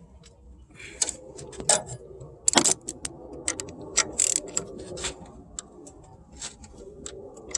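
Irregular metallic clicks and clinks of hand tools at work on the car, sharp ticks at uneven spacing with a few louder knocks, one of them about two and a half seconds in.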